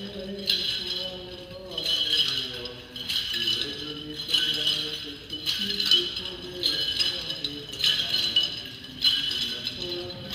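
Bells on an Orthodox censer's chains jingling in rhythmic swings, about once a second, as the icons are censed. A voice chants a hymn underneath.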